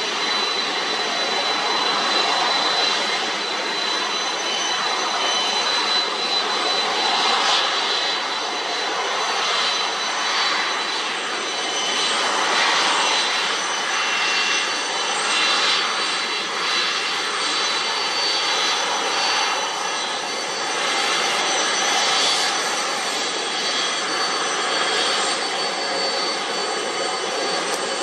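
Jet engines of a UPS Boeing 747 freighter taxiing past at low power: a steady rushing hum with a thin, high, even whine over it.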